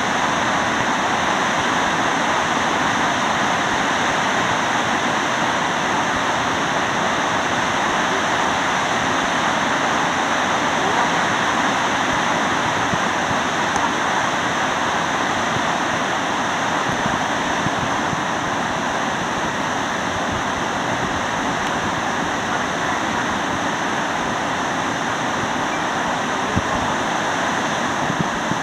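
Waterfall plunging into a rocky pool: a steady, even rush of falling and churning water.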